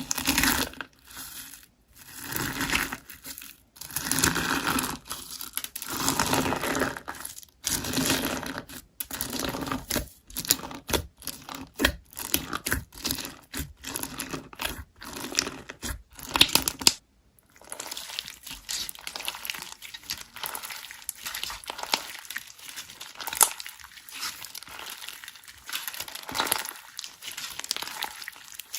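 Slime being handled and squeezed by hand, making dense, irregular crackling and clicking. It comes in bursts with short pauses at first, then runs on softer and more steadily from a little past the middle.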